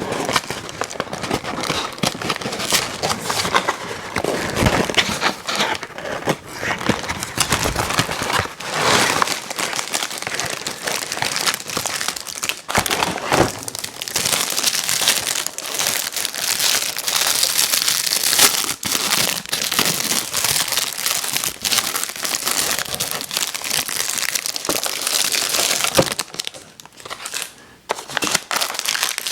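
Plastic snack packaging crinkling and crackling close to the microphone, handled continuously, with a short lull near the end.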